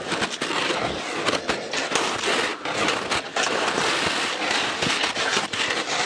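Crusted snow crunching under a person moving over it: a dense, unbroken run of small crackles.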